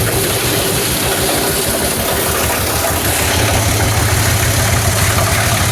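Single-cylinder Eicher tractor diesel engine running steadily with a fast, even pulsing rumble, driving a plastic scrap grinder.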